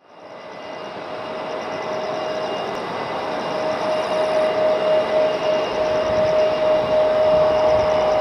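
The twin turbofan engines of a Boeing 777-200ER at takeoff power, heard from a distance: a steady rushing jet noise with a strong steady whine on top. The sound fades in at the start and keeps growing louder as the takeoff roll begins.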